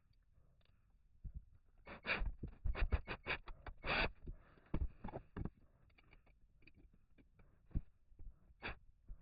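Irregular knocks, taps and clicks of hand work on a wooden toolbox as hardware is fitted, busiest from about two to five seconds in.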